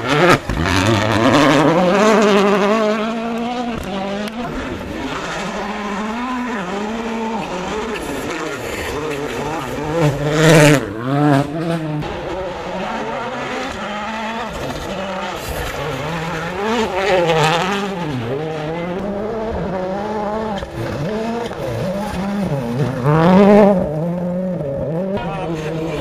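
Rally cars at full attack on a special stage, engines revving hard and dropping back again and again through gear changes, with several loud surges as cars come closest, the loudest about ten seconds in and near the end.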